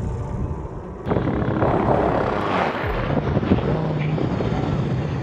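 An engine running, quieter for the first second, then loud and steady from about a second in.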